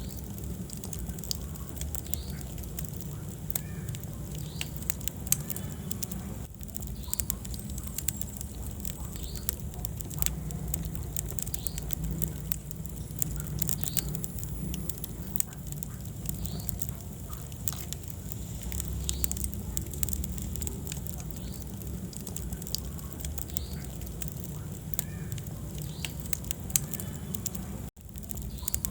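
Wood fire burning in a fireplace: a low steady rumble of flames with frequent sharp crackles and pops. The sound drops out for an instant near the end.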